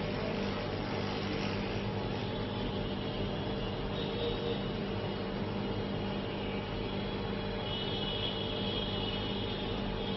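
Steady electrical hum with an even hiss, unchanging throughout.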